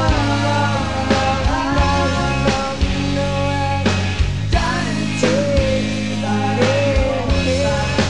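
Rock band recording: a lead melody line with pitch bends and vibrato over drums, bass and guitars.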